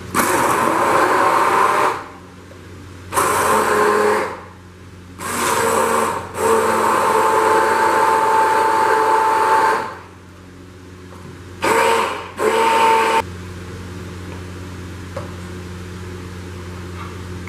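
Immersion (stick) blender running in a plastic jug, puréeing boiled apricots and mint leaves in their cooking water. It runs in about six bursts, the longest about four seconds, and stops for good about 13 seconds in, leaving a faint low hum.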